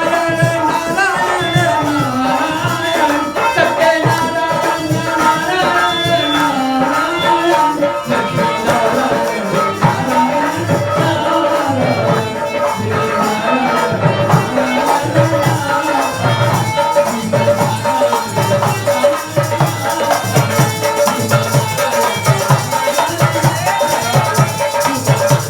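Hindu devotional kirtan: voices singing a chant over a steady hand-drum beat, with a shaken rattle.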